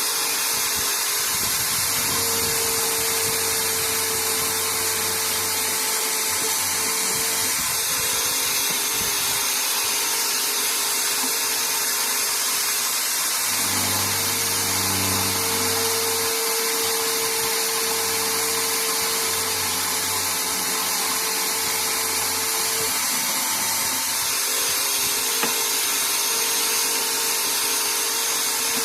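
Small electric bench drill motor running steadily: a continuous whirring hiss with a low hum whose tone shifts now and then.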